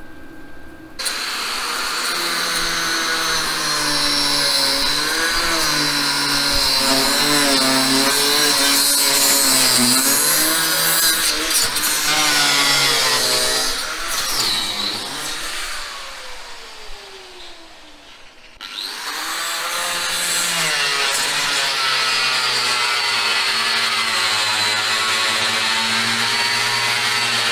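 Angle grinder cutting through a steel bolt rusted fast in its bushing, the motor's pitch wavering as the disc bites. About halfway through it is let off and winds down with a falling whine, then starts up again and cuts on.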